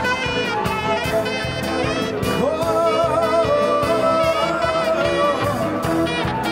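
Music with a steady beat and a brass or saxophone-like melody; about two and a half seconds in, the melody slides up onto one long wavering note held until about five seconds in.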